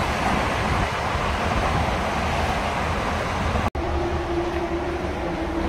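Steady rushing road-traffic noise from vehicles. It drops out for an instant about two-thirds of the way through, and after that a steady low hum runs along with it.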